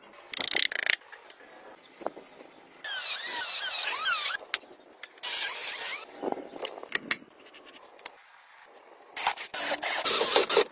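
Workshop sounds of a PVC part being worked: a squealing, rubbing stretch of plastic for about a second and a half a few seconds in. Near the end comes the loudest sound, a small electric drill boring into the PVC ring.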